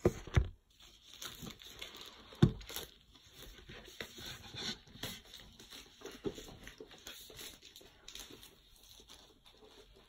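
Plastic film wrap being peeled and crinkled off a cardboard iPad Air box by hand, with many small crackles and taps. Two sharp knocks stand out, one just after the start and one about two and a half seconds in.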